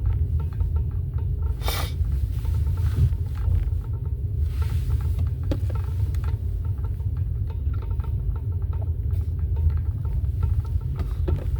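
A steady low rumble, with a few brief swishes and faint ticks over it.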